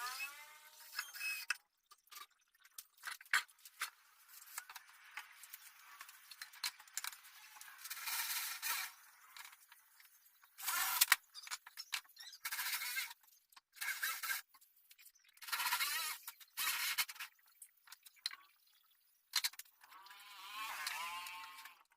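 A handheld power tool run in short bursts of about a second each, several times over, its pitch falling as it spins down at the start and again near the end.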